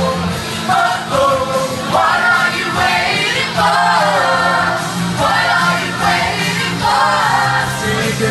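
Pop music sung by a group of voices, choir-like, in phrases over steady low bass notes.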